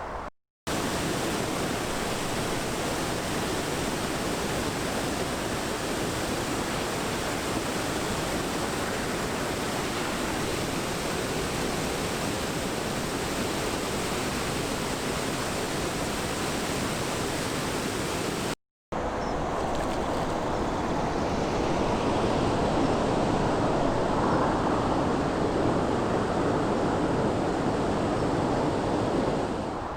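Steady rushing noise of road traffic, broken by two brief cuts to silence, one just after the start and one a little past halfway; somewhat louder in the last third.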